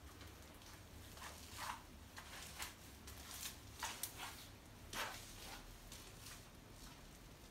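Faint handling noise: short, irregular rustles and scuffs from the hand-held camera moving and the person's clothing and steps.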